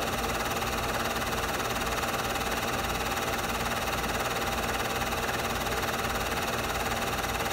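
Steady mechanical hum and hiss of a Super 8 film projector running, unchanging throughout, with a few fixed tones in the hum.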